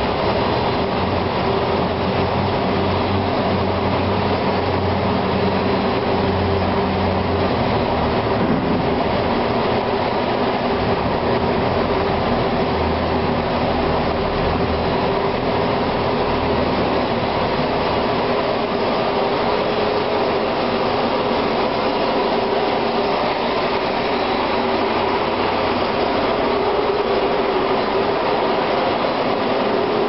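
IVAC PV500 air-powered industrial vacuum running steadily while sucking out a mine sump: a continuous loud roar with a steady hum over it. A deeper rumble comes and goes through the first half.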